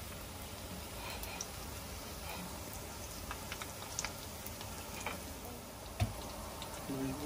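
Shrimp-and-pork balls wrapped in spring-roll wrapper deep-frying in hot oil: a steady sizzle with scattered sharp pops and crackles. A single thump about six seconds in is the loudest sound.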